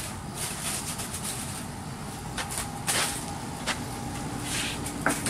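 Indoor background noise with a faint steady hum and scattered clicks and knocks, the loudest about three seconds in and again just before the end.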